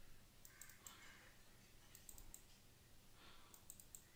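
Faint computer mouse clicks in quick clusters, three times, as asset thumbnails are double-clicked, over quiet room tone.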